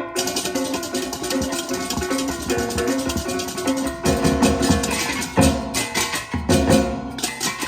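Balinese baleganjur gamelan playing: rapid clashing hand cymbals over held, pitched bronze gong tones and drums. It gets louder from about four seconds in.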